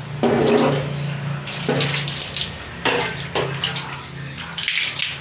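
Water thrown from a plastic dipper splashing against a louvered bathroom door, several splashes about a second apart, rinsing the door. A faint steady hum runs underneath.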